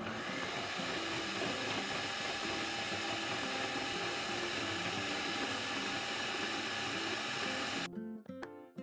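Electric food processor motor running steadily as its blade chops green chillies; it cuts off abruptly near the end, where plucked background music comes in.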